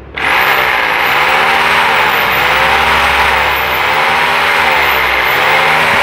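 An old German-made handheld electric power tool switched on, its motor starting about a quarter of a second in and then running steadily at speed with a loud rushing whine. The pitch sways gently up and down every second or so. The tool runs, though its owner says it has a problem in its mechanism.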